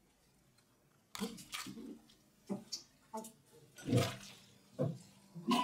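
A man making short breathy vocal noises, sniffs, huffs and grunts, about nine in an irregular run after a quiet first second.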